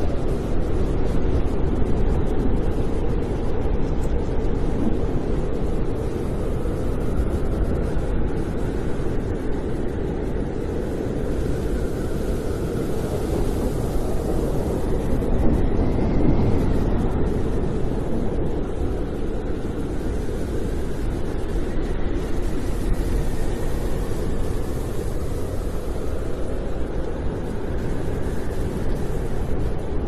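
Snowstorm wind: a steady low rush with faint whistling tones that slowly rise and fall.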